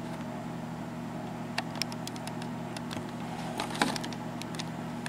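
Steady low electrical hum with a few faint, light clicks from small lock pins and parts being handled.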